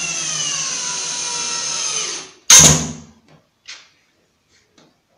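Cordless drill/driver driving a 6 × 1¼-inch screw at a slant through a pocket hole into 18 mm melamine board; the motor whine sinks a little in pitch as the screw draws in, then stops about two seconds in. Half a second later comes a short, louder burst, then a few light taps.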